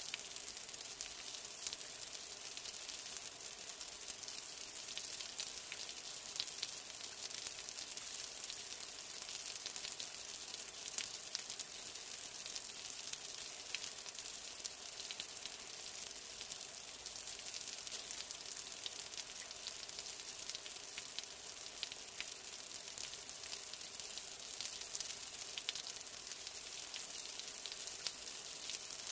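Steady rain: a dense, even hiss with many small drop ticks scattered through it.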